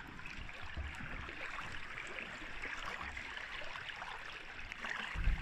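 Swimming-pool water splashing and churning at the surface as swimmers kick past, picked up by a camera sitting at the waterline. A low rumble sets in near the end.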